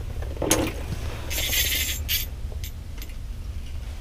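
Fishing gear being handled in an ice shack: a sharp knock about half a second in, then a short scraping hiss and a few light ticks, over a steady low rumble.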